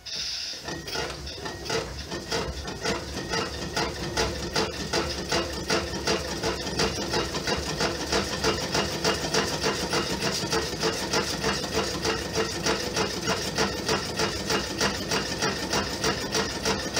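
Homemade Stirling engine being spun up by hand at its flywheel, then running on its own with a steady rhythmic mechanical clatter of about two beats a second. It grows louder over the first few seconds as it gets going.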